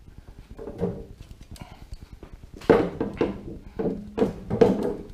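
An EOS 150 two-stroke paramotor engine with its steel exhaust being handled and turned over on a wooden board: a few knocks, then a louder run of knocks and scrapes with some metallic ringing in the second half.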